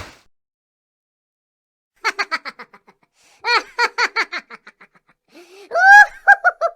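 High-pitched laughter dubbed in as a meme sound effect: after about two seconds of silence, quick runs of 'ha-ha-ha' syllables in three bursts, the last one loudest and rising in pitch.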